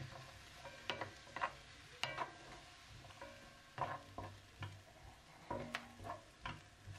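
Diced onions sizzling in a nonstick frying pan as they caramelise, with a spatula stirring them and scraping against the pan every half second or so.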